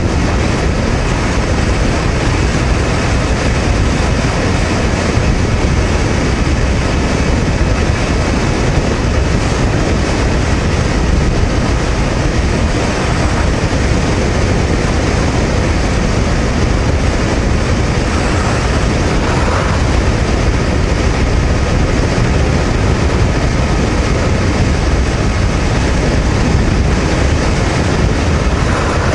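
Honda VTR250 250cc V-twin motorcycle cruising steadily at about 108 km/h on an expressway: a loud, steady rush of wind and road noise, heaviest in the lows, with the engine's hum underneath.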